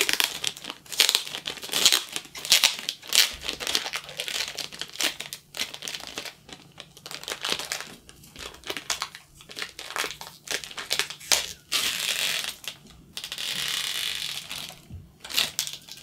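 Protective plastic film being peeled off a new stenotype machine's screen, crinkling and crackling in many short snaps, with one longer continuous peel near the end.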